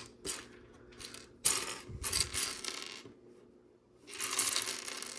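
Small plastic LEGO pieces clattering and rattling as a hand sifts through a loose pile in search of one brick, in several bursts with short pauses between.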